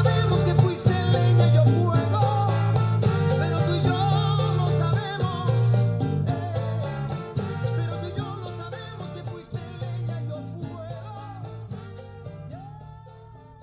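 Latin-style song with singing and a steady bass line, fading out over the last several seconds.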